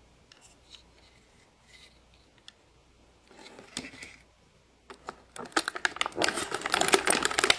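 Hands handling a plastic fashion doll and its clip-on dress: scattered light clicks, then a dense stretch of crackling and rustling through the last couple of seconds.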